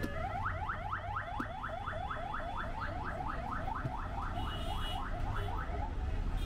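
Electronic vehicle siren chirping rapidly, about five rising whoops a second for some five seconds, over the low rumble of road traffic.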